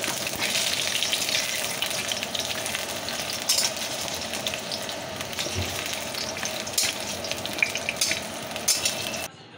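Potato chunks sizzling as they fry in oil in a metal kadai, with now and then a scrape or tap of a steel spatula turning them against the pan. The sizzling cuts off suddenly near the end.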